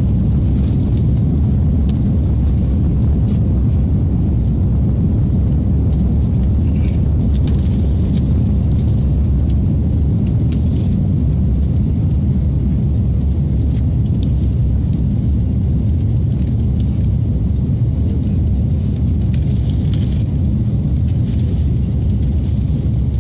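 Cabin noise of an Airbus A330-300 with Rolls-Royce Trent 700 engines climbing after takeoff: a steady, loud low rumble of engines and airflow with a faint high hiss above it.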